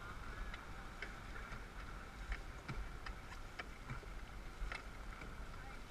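Dragon boat paddles working the water: irregular sharp clicks and splashes from the crew's strokes, over a steady low rumble of water and wind on the microphone.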